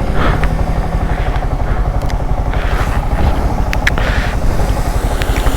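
Yamaha MT-15's single-cylinder engine running steadily with a fast, even low pulse.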